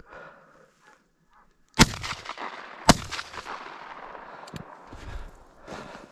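Two shotgun shots from a double-barrelled shotgun, about a second apart, each followed by a long fading echo. They are fired at a running brown hare.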